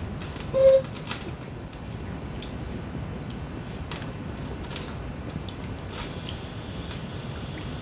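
A spoon stirring coconut-milk curry in a nonstick pan, giving light clicks and scrapes against the pan over steady low background noise. A short, loud tone sounds about half a second in.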